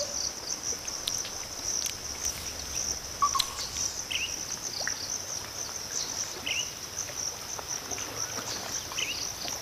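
Mangrove ambience: a steady, high-pitched insect chorus. Short chirps come about every two and a half seconds, with one lower call about three seconds in.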